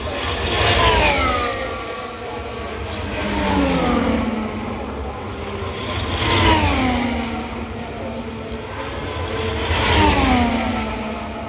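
Formula 1 cars, each with a 1.6-litre turbocharged V6 hybrid engine, going past at speed one after another, four in all about three seconds apart. Each engine note drops in pitch as the car goes by.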